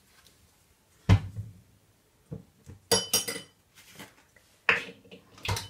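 A spoon knocking and clinking against a container, five or six separate sharp knocks, as a teaspoon of salt is measured and tipped into a marinade. The loudest knock comes about a second in.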